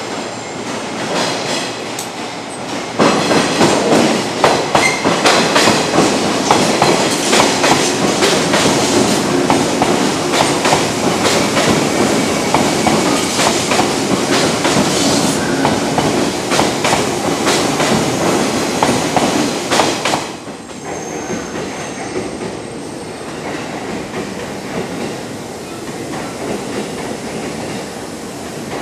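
Electric train rolling past close by, steady rolling noise with a rapid clickety-clack of wheels over rail joints, loud for most of the time. It drops off abruptly to the quieter, steady rumble of another train moving slowly on the tracks.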